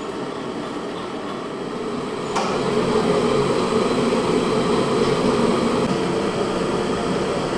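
Gas stove burner running steadily, then a large aluminium pan of water with eggs boiling hard. The steady noise steps up a little louder about two and a half seconds in.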